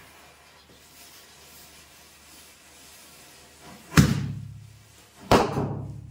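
Two Diwali firecrackers going off, set off by a burning matchstick chain: two sharp bangs about a second and a half apart, each dying away with an echo.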